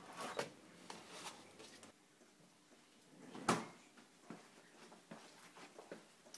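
Refrigerator door being handled, with a plastic milk jug taken from the door shelf among bottles: a few light knocks near the start, then one loud thump about three and a half seconds in.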